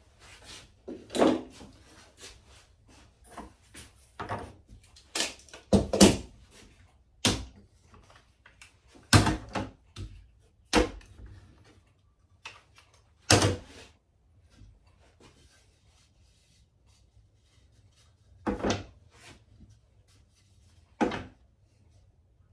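Wooden blocks and strips of an end-grain cutting board layout being handled and set down on a workbench: irregular sharp knocks and clacks, with a quiet spell of a few seconds past the middle.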